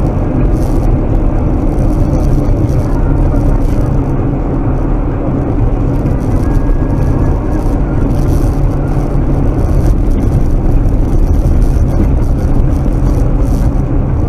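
Steady drone of a car driving at highway speed, engine and tyres on a snow-covered road, heard from inside the cabin through a dashcam microphone.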